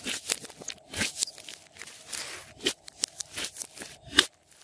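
Thick glossy slime being kneaded, squeezed and stretched by hand, giving irregular wet squishes and sharp popping clicks of air caught in the slime. The loudest pop comes about four seconds in.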